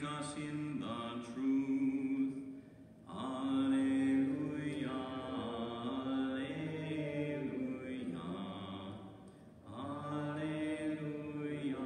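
Unaccompanied liturgical chant sung by a single male voice, in long held notes grouped into phrases, with brief pauses about three seconds in and again near ten seconds.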